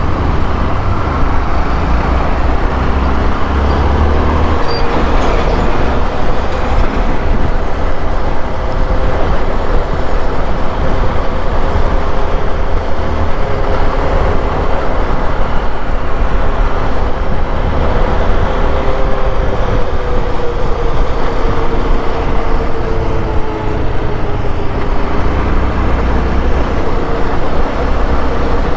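Honda XRE 190's single-cylinder engine running while the bike is ridden, its pitch slowly rising and falling with engine speed, over steady wind and road noise.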